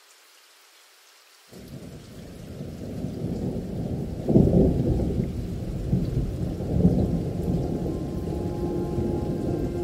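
Thunderstorm sound: a faint hiss of rain, then rolling thunder that breaks in suddenly about a second and a half in and rumbles on, loudest about four seconds in and again near seven seconds.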